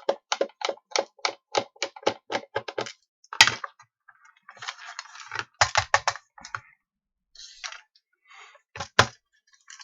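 Small clicks and knocks of a plastic PIR alarm sensor being unscrewed and handled. There is a quick, even run of clicks, about five a second, for the first three seconds, then a scrape in the middle and one sharp knock near the end.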